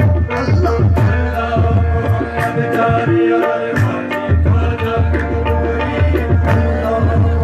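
Loud live Punjabi folk music with hand drums beating a steady rhythm under held melody notes.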